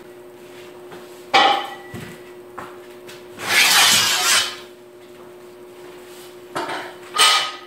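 Hot-rolled steel flat bar being lifted and moved on a workbench. A metal clank comes about a second and a half in, then a longer metal scrape around four seconds, then two more clanks with a short ring near the end, all over a faint steady hum.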